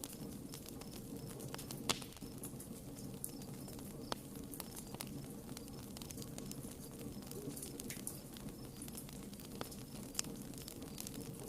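Wood campfire burning: scattered crackles and sharp pops from the burning wood, with three louder pops about 2, 4 and 10 seconds in, over a steady low rumble.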